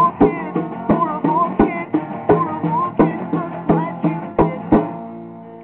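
Acoustic guitar strummed in a steady rhythm, with a melody line rising and falling over the chords. The strumming stops near the end and the last chord rings out.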